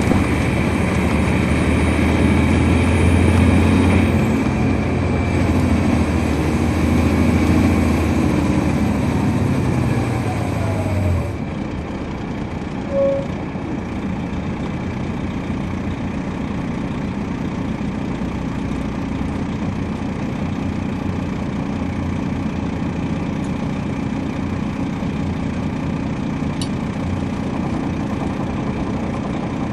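A coach's Detroit Diesel Series 60 diesel engine heard from inside the cabin, running strongly with its pitch falling, then cutting back suddenly about eleven seconds in and settling to a steady idle. A short beep sounds about two seconds after the drop.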